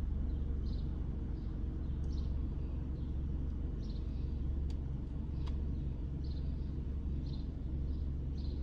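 Car stopped at a red light, heard from inside the cabin: a steady low engine and road rumble. Faint high bird chirps come through every second or so, with two small clicks about halfway through.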